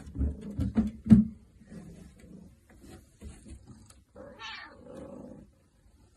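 Calico cat yowling: low cries mixed with a few thumps on the wooden stairs in the first second, then a clearer, higher meow about four seconds in, trailing into a lower cry.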